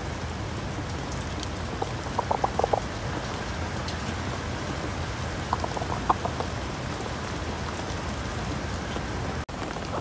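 Steady rain falling, over which an Araucana hen sitting in her nest box gives two short runs of soft, rapid clucks ("kukukuku"), about two seconds in and again around five and a half seconds in. This is a hen's low murmur while settled on the nest to lay.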